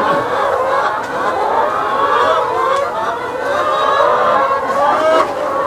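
A flock of poultry calling and clucking together, many overlapping wavering calls, continuous and fairly loud.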